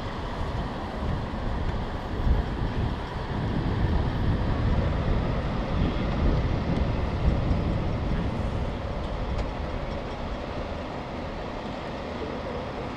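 Steady low rumble of vehicles and engines, swelling a little in the middle and easing off towards the end.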